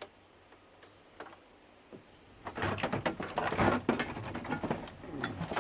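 Clicks and rattling of plastic and metal parts being handled inside a television as its speaker wires are worked free: a few isolated clicks, then a busy stretch of clattering and rustling from about halfway in.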